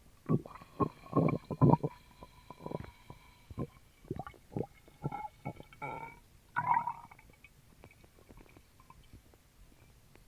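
A person's stomach gurgling as carbonated Sprite goes down: a quick run of gurgles for about seven seconds, some drawn out into squeaky tones, then settling to faint small clicks.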